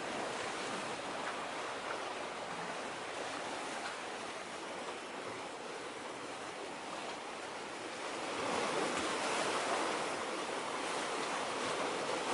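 Small waves washing against the shore: a steady rushing noise with no engine or horn heard, swelling a little about eight seconds in.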